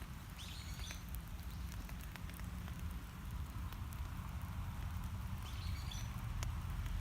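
Outdoor ambience: a steady low rumble like wind on the microphone, with a few faint high chirps twice and scattered small ticks.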